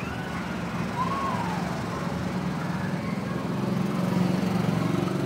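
A small engine running steadily, a low even hum that grows slightly louder toward the end.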